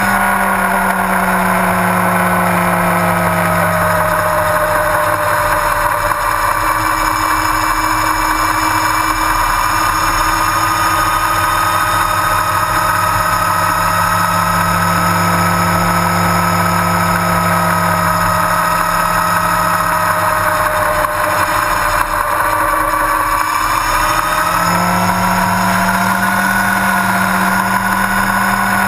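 Yamaha R1's inline-four engine running at a steady cruise on the road, with wind and road noise over it. The engine note eases down a little over the first few seconds, then drops off briefly and picks back up about three-quarters of the way through.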